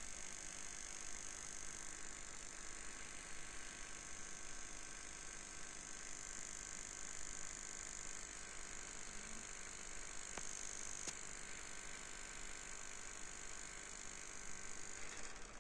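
Homemade electromagnetic coil oscillator running, a faint steady mechanical buzz with a high hiss, and two light ticks about ten and eleven seconds in.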